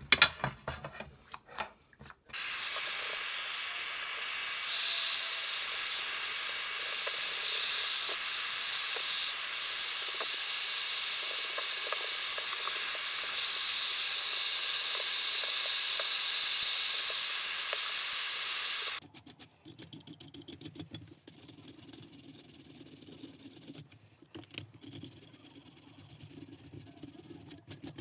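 A loud, steady hiss starts about two seconds in, lasts some sixteen seconds and cuts off suddenly. After it, a stiff nylon brush scrubs a metal G-clamp, with irregular scrapes and knocks.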